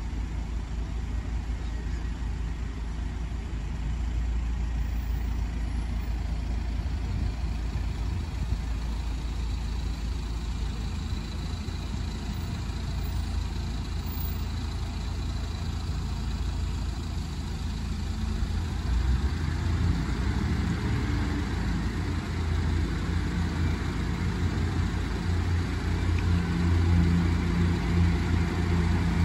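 Steady low traffic rumble, then from about twenty seconds in the diesel engines of a Class 156 multiple unit grow louder as the train approaches, running with a steady low drone.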